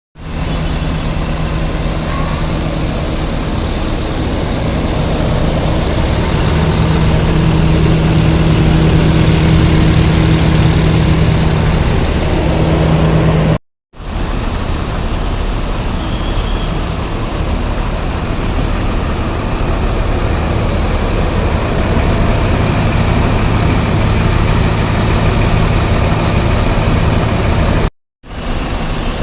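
Bus engine idling steadily, a low even hum, broken by two brief silences, about halfway through and near the end.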